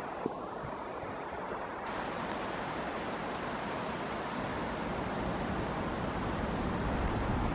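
Steady hiss of heavy rainfall, with a low rumble building toward the end.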